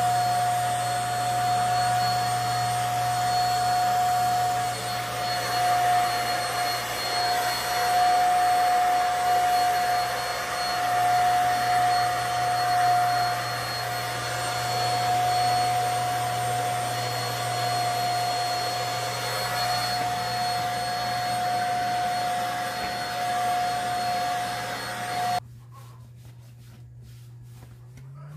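Red corded stick vacuum cleaner running steadily with a high motor whine as its nozzle goes over fabric sofa cushions. It is switched off near the end and cuts out abruptly.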